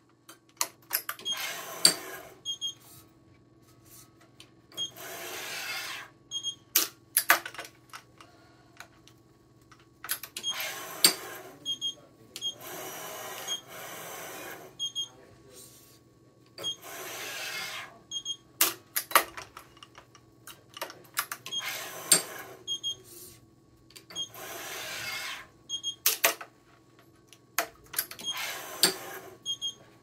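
Badminton string being stringed on a Yonex ES5 Pro electronic stringing machine. The string rasps through the frame in swishes of one to two seconds, clamps and the tensioner click sharply, and short high beeps come in pairs. The cycle repeats every few seconds over a faint steady machine hum.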